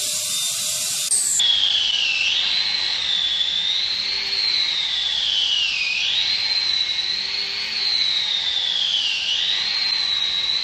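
High-pitched whine of an electric power tool motor working wood, its pitch sagging and recovering every couple of seconds as the load on it changes.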